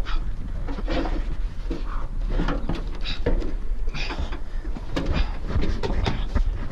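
Scuffs, scrapes and knocks of hands and shoes against the metal engine cowling of a Boeing 747 as someone climbs up it, over a steady low rumble of wind on the microphone.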